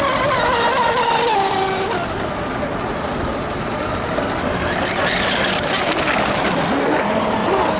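Radio-controlled speedboats running flat out, their motors whining at a high pitch that falls away about a second in and rises again as one passes close near the end, over a steady hiss.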